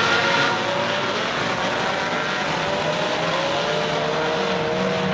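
A field of U-car class dirt-track stock cars racing around the oval, their engines blending into a steady drone. Several engine notes rise and fall as the cars go through the turns and down the straights.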